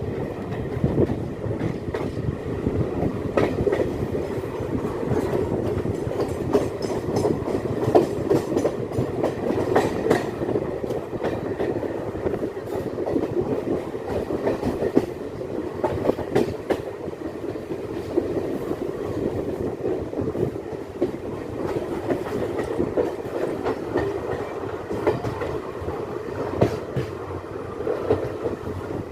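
Passenger train running along the track, heard from on board: a steady rumble of the coach with frequent clicks and clatter from the wheels over the rails.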